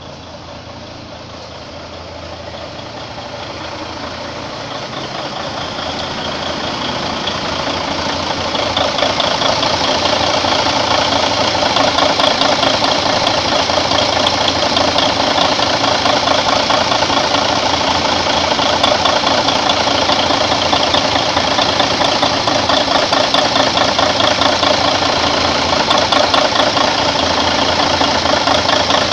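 Mercedes-Benz Actros truck diesel engine running steadily after an overhaul, with a fast, even clatter. It grows louder over the first several seconds, then holds level.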